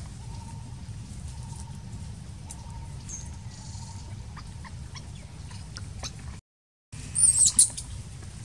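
Baby macaque giving a short burst of high-pitched squeals near the end, the loudest sound, over a steady low rumble.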